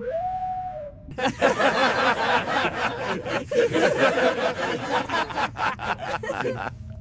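A group of cartoon characters laughing heartily together for about five seconds, cutting off abruptly near the end. It is preceded by a short rising tone in the first second.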